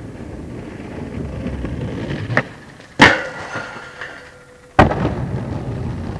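Skateboard wheels rolling on stone paving, then the tail popping about two and a half seconds in and the trucks slamming onto a metal handrail, which rings as the board grinds down it. A hard landing just under five seconds in, then the wheels rolling away.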